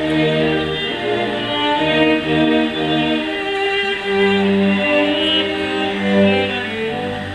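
Bowed string music: violins and cellos playing held notes over a low bass line, the notes changing every half second or so.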